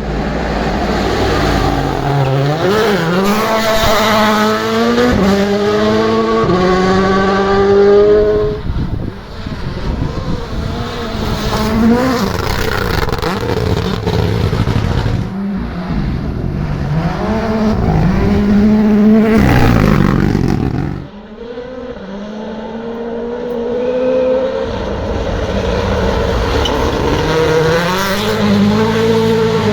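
Rally cars' engines at full throttle, revving up through the gears in repeated rising runs with short drops between shifts. About twenty seconds in comes a loud rush as a car goes past, after which the engine note drops and builds again.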